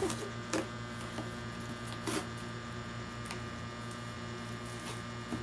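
Packing tape being peeled and torn off a cardboard delivery box: a few short rips and rustles, over a steady low electrical hum.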